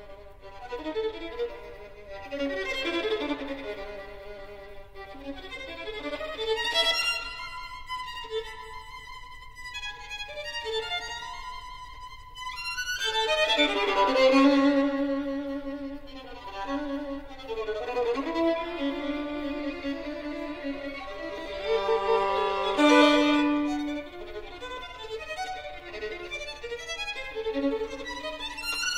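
Solo violin playing a classical piece, unaccompanied, with melodic lines that swell louder about halfway through and again near the end.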